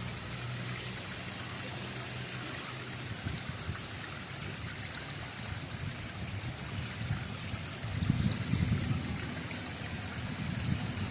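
Stream running and trickling in a steady wash of water noise, with a louder, deeper gush about eight seconds in.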